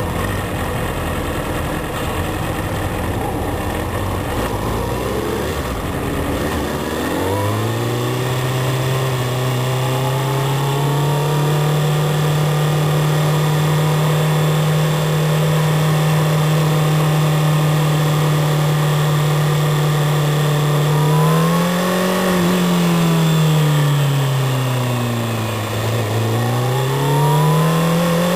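Onboard motorcycle engine over wind rush. About seven seconds in the revs climb and then hold a steady drone for a long stretch. Near the end the pitch rises, sinks and rises again as the throttle is rolled on, off and on.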